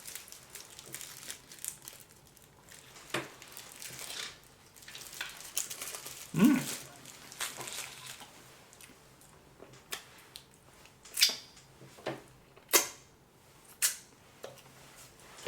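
Handling of gift packaging and candy wrappers: scattered crinkles and sharp clicks, with several louder clicks near the end and a brief low hum about six seconds in.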